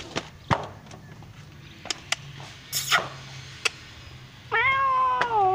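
A few light clicks, then about four and a half seconds in a cat starts one long, drawn-out meow that dips slightly in pitch and carries on.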